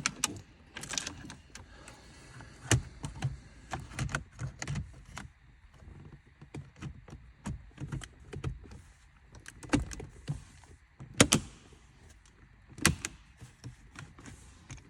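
Plastic dashboard trim and parts being handled and pushed back into place in a car interior: scattered clicks and knocks, with one sharper knock about two-thirds of the way through.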